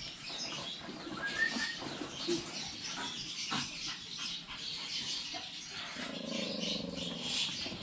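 Birds chirping in the background, with a few light clicks and rattles from a wire dog crate as a hand reaches into it.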